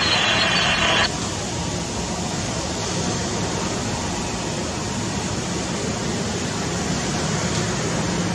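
Airbus A320-214's CFM56 jet engines running with a steady rush as the airliner lines up on the runway. A crackly air-band radio transmission cuts off about a second in.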